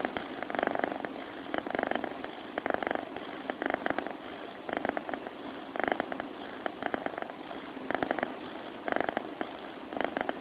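Sleeping cat purring close to the microphone: a fast rattling purr that swells and fades with each breath, about once a second.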